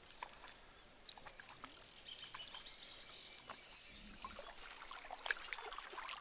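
Faint water sloshing and trickling at the lagoon's edge, with a few small clicks, growing louder and splashier from about halfway through.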